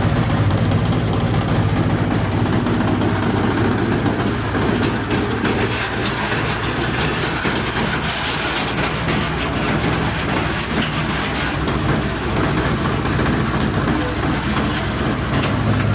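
Areca nut peeling machine running on its motor with a steady hum; through the middle the hum gives way to a rougher, noisier rattle, and the steady hum returns near the end.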